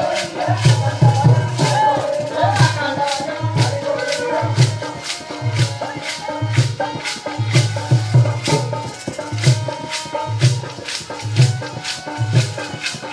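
Folk bhajan dance music: a deep drum beat with sharp, jingling clapper strokes keeping a fast steady rhythm, and group singing heard mainly in the first few seconds.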